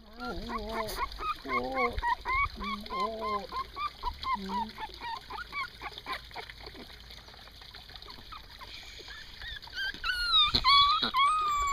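Three-week-old puppies yelping and whimpering: a quick run of short, honk-like yelps in the first half, then high whines that rise and fall near the end.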